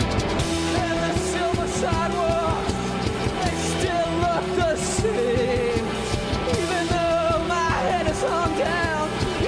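Psychedelic pop-rock band playing live: electric bass, drum kit and a singing voice with a steady beat.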